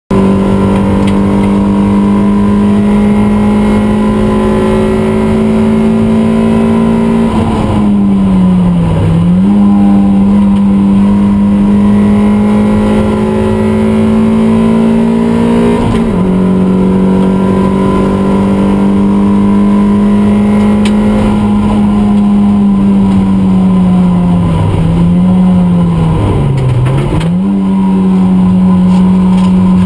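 Toyota MR2 race car's four-cylinder engine at full throttle, heard loud from inside the cabin. The revs are held high for long stretches and dip and pick up again about eight seconds in, briefly at sixteen seconds, and twice near the end: gear changes and braking for corners.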